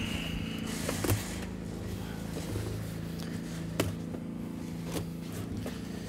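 Pond liner being handled and pulled away from a waterfall filter's bolted flange, with a brief squeak at the start and a few light knocks, over a steady low hum.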